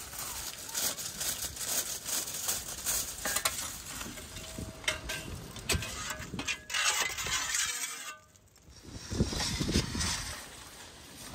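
Aluminium foil crinkling and rustling as it is pressed down over a large metal pan, with scattered clicks and knocks of handling.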